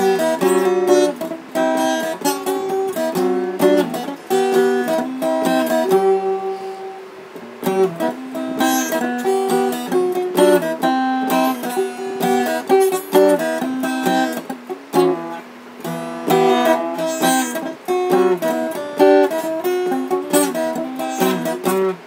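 Steel-string acoustic guitar strummed and picked in an instrumental passage, with no singing. About six seconds in, one chord is left to ring more quietly before the playing picks up again.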